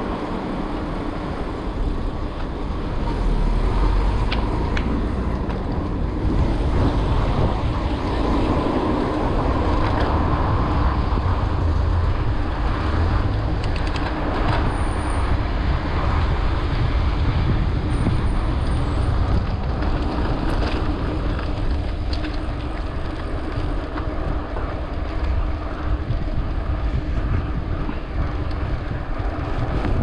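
Steady rumble and rush of a mountain bike being ridden along a city street, tyres on the road and air past the microphone, with a few short clicks and rattles from the bike.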